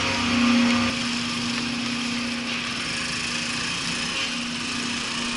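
Honda Super Cub 50's small single-cylinder four-stroke engine running steadily at low speed, a steady hum that wavers slightly. A louder low rumble drops away about a second in.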